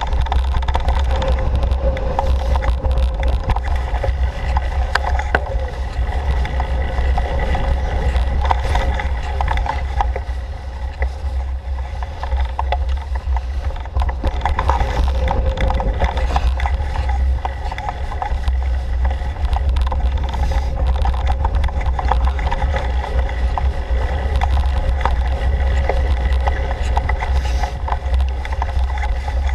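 Bicycle riding fast along a dirt forest trail: a steady low rumble of tyres and air on the microphone, with scattered rattling clicks as the bike goes over bumps.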